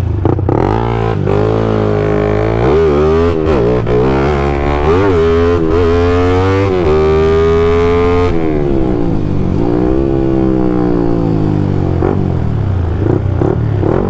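Yamaha MX King's single-cylinder engine, bored up to 170 cc, accelerating hard through the gears, its pitch climbing and dropping back at each shift. About eight seconds in the throttle closes and the revs fall, then pick up briefly and fall again as the bike slows.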